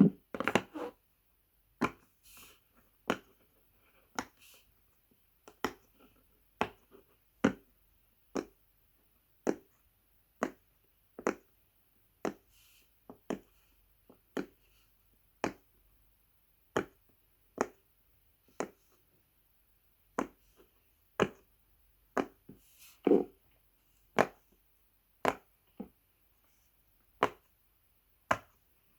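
Silicone pop it fidget toy having its bubbles pressed one at a time close to a microphone: a steady series of sharp single pops, about one a second.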